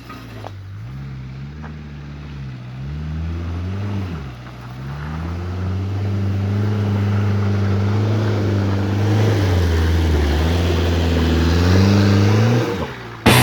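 Rear-mounted 1.6-litre turbo-diesel engine of a VW T3 Syncro van working under load, its pitch rising and falling as the revs change and getting louder after a few seconds. The sound stops abruptly near the end.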